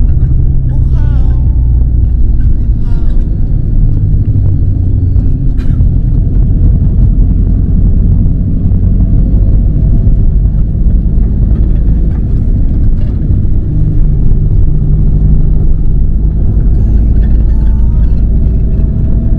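Van driving on the road, heard from inside the cabin: a loud, steady low rumble of engine and tyre noise. Faint voices come through briefly near the start and near the end.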